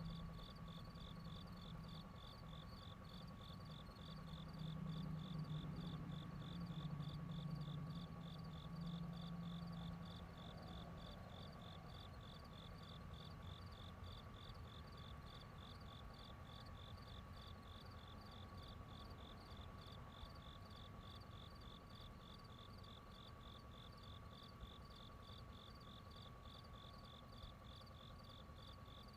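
Crickets chirping in a steady, even train of short high pulses, a few per second. A low hum swells underneath between about four and ten seconds in.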